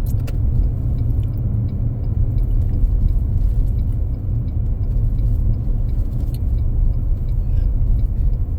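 Steady low rumble of a car driving, heard from inside the cabin, with faint scattered ticks.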